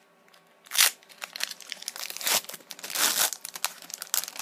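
Foil Pokémon booster-pack wrapper crinkling as it is handled and opened: a loud crackle about a second in, then more irregular crinkling.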